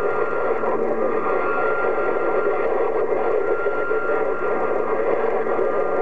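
Static and hiss from a Uniden HR2510 radio receiving a busy channel at 27.025 MHz, with a steady high whistle running over the noise.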